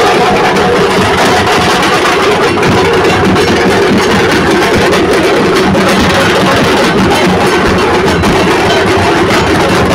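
Several street drummers beating shoulder-slung barrel drums and large bass drums with sticks at once: loud, dense, continuous drumming.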